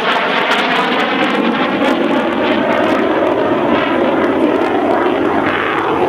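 Aircraft engine running steadily and loudly, a constant roar with no gunfire.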